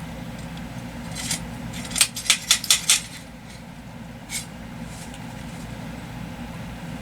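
Sharp metallic clicks from handling a Taurus TX22 .22 LR pistol: a single click, then a quick run of about five clicks a fraction of a second apart, then one more. This is the pistol being worked while a malfunction is cleared: it has been failing to eject Aguila rounds.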